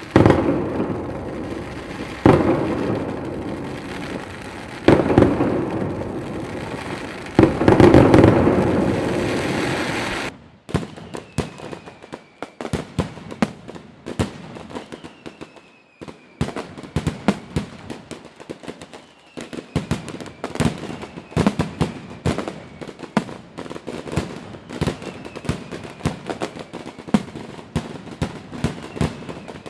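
Fireworks display: four big aerial shells burst with deep booms, each trailing a long rumble. About ten seconds in the sound changes abruptly to rapid, dense crackling pops with faint falling whistles.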